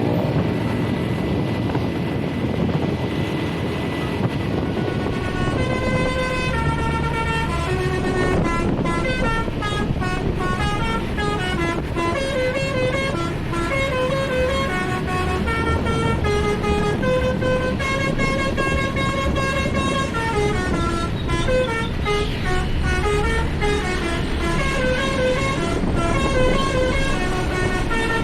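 A bus's basuri musical air horn playing a tune of stepping notes, starting about six seconds in and going on to the end, over steady engine and road noise.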